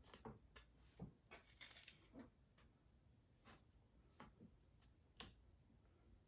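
Faint, scattered scrapes and light taps of a painting tool drawing striations into texture paste on a canvas, with a denser run of scraping about a second and a half in.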